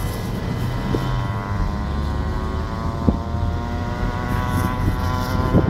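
Steady engine drone heard from inside a moving car: a low rumble under a hum of evenly spaced tones, with a light knock about three seconds in.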